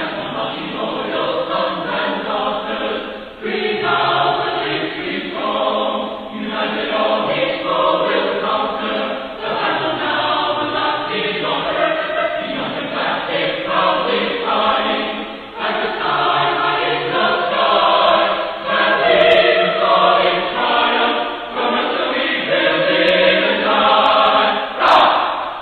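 A choir singing sustained chords, phrase after phrase, with short breaks between phrases.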